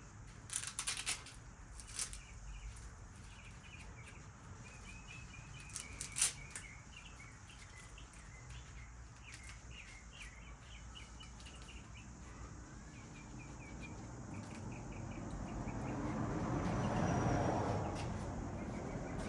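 A small bird chirping in a quick run of short chirps in the background, with a few sharp clicks early on. Near the end a low rushing noise swells up and fades a little.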